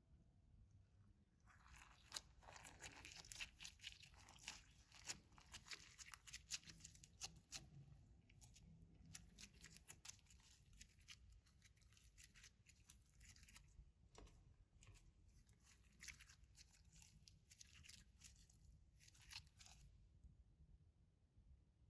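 Clear slime with glitter in it being worked by hand, giving quick crackling clicks and pops as it is stretched and squished. They start about a second and a half in, are densest in the first few seconds, and stop shortly before the end.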